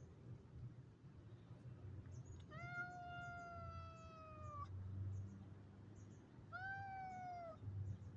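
A domestic cat meowing twice: one long, drawn-out meow of about two seconds whose pitch slowly falls, then a shorter meow of about a second.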